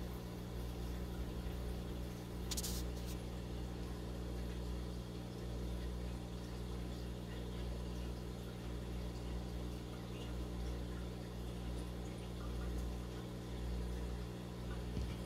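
Steady low hum of running aquarium equipment, made of several constant low tones, with a brief sharp tick about two and a half seconds in.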